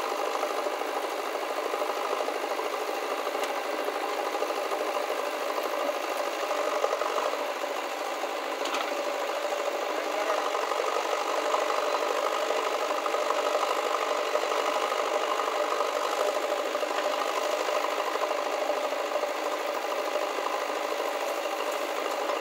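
JCB 3DX backhoe loader's diesel engine running steadily under load as its backhoe arm digs and loads soil.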